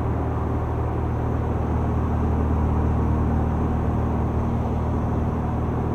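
Small propeller plane's engine and propeller droning steadily in flight, heard from inside the cabin as an even, low hum.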